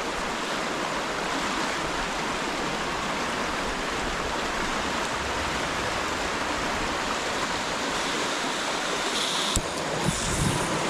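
Steady rush of river water. About nine and a half seconds in there is a single sharp click, fitting the gas stove's push-button piezo igniter being pressed to light the burner.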